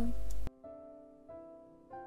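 Soft instrumental background music: gentle sustained notes, a new one about every two-thirds of a second, each fading away. Before it, a low hum cuts off sharply about half a second in.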